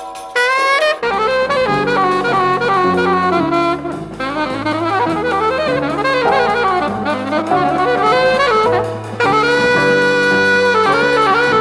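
Jazzy film-score music: a saxophone-led melody over a walking bass line, with drums, the bass and drums coming in about a second in.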